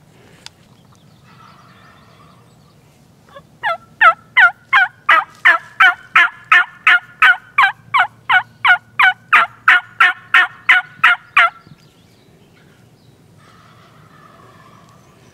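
Turkey yelping from a hunter's call: a long, even run of about twenty loud, close yelps, roughly three a second, starting a few seconds in and stopping shortly before the end. It is locator calling to draw an answer from a gobbler.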